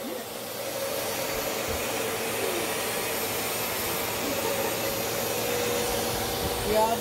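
Bissell CleanView Swivel Pet upright vacuum running steadily, a whooshing hum with a steady whine, as it is pushed over a rug.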